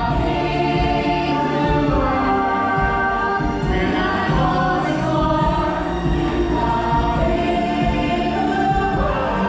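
Show music with a group of voices singing together in long, held notes over a steady backing.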